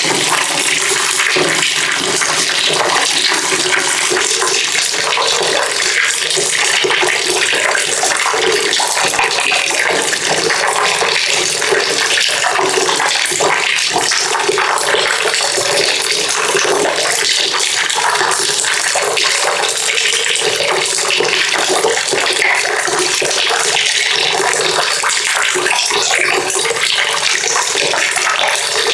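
Water pouring steadily into a bucket, a continuous splashing rush with no break.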